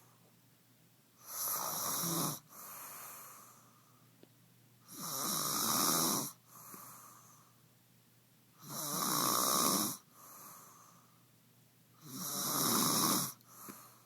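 A sleeper snoring: four loud, rasping snores about every three and a half seconds, each followed by a softer breath out.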